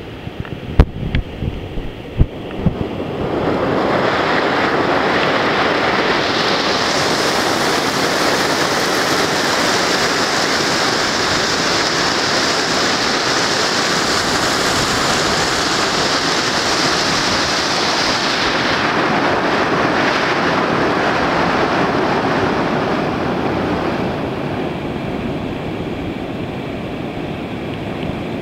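River rapids: a steady rush of whitewater churning over rock ledges, building up about three seconds in and easing a little near the end. A few low thumps come before the rush builds.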